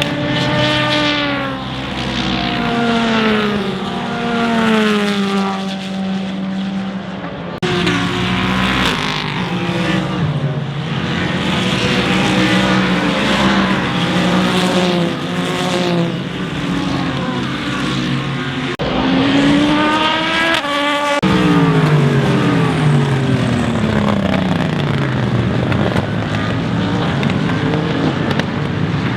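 Endurance race cars passing at speed, engines at high revs, each note falling in pitch as the car goes by. Several passes follow one another, with sudden changes from one car to the next.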